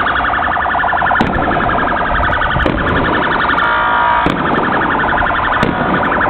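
Many car horns sounding together in a continuous din, with four sharp firework bangs about a second and a half apart.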